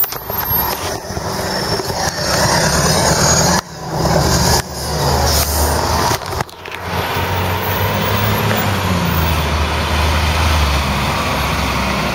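City street traffic dominated by a heavy vehicle's engine running, its pitch rising and falling as it pulls along. The sound breaks off abruptly twice at cuts in the recording.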